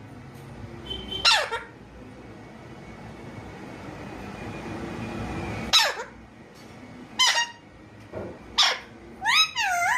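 Pet parrot calling in short, sharp squawks, about five of them, most sliding down in pitch, with a wavering up-and-down call near the end.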